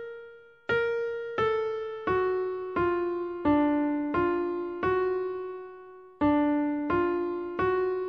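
Background music: a slow keyboard melody on an electric-piano-like sound, one struck note about every 0.7 s, each ringing and fading, with one longer held note past the middle.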